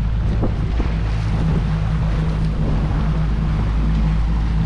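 115 hp outboard motor running steadily with the boat under way, a constant hum under the rush of wind on the microphone and water along the hull.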